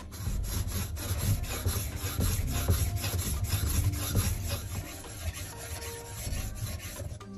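Steel cleaver blade being pushed and pulled across a whetstone: a quick run of repeated scraping strokes of metal grinding on stone, which tails off near the end.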